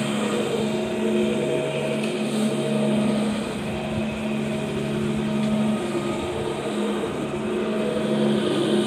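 Electric cylindrical-brush carpet cleaning machine (CRB) running steadily as it is pushed over wet carpet, its motor and brushes giving a constant low hum.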